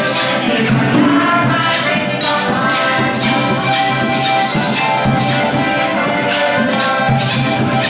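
Rake-and-scrape music: two diatonic button accordions playing a tune in chords, with a carpenter's handsaw scraped in a steady rhythm.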